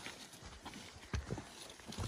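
Footsteps on a soft forest trail: about five irregular, dull thuds, the loudest a little past a second in.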